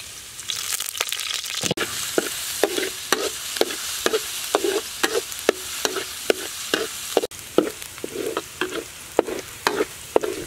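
Minced garlic sizzling in hot soybean oil in a steel wok, with a spatula scraping and stirring through it about twice a second.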